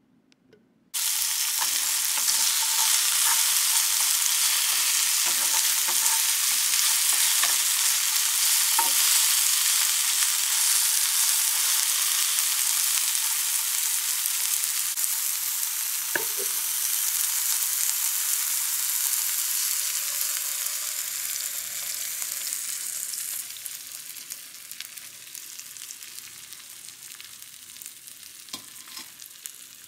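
Eggs sizzling in a frying pan, starting abruptly about a second in, with a few clicks of a utensil against the pan. The sizzle drops down quieter a little past two-thirds through.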